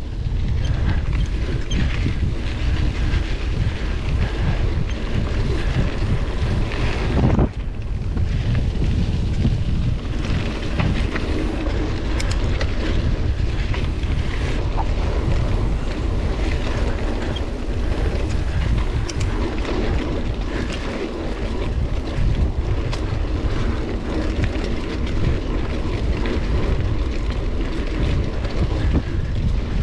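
Wind buffeting the microphone of a camera riding on a moving mountain bike, a steady low rumble with scattered small clicks and knocks from the bike over the trail.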